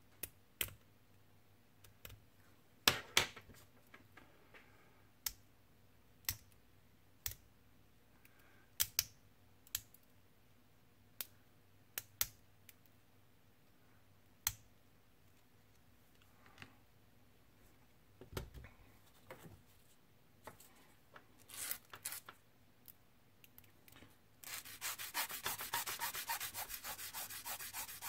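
Sharp, irregular clicks and snips as sprue gates are cut off a small plastic model part with a hobby knife and flush cutters. About 24 seconds in, a rapid, even rasping starts as the cut is sanded smooth with a flat sanding stick.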